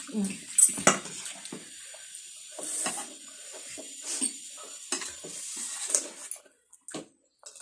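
Noodles being slurped and chewed close to the microphone, with a spoon and fork clicking and scraping on a plate several times.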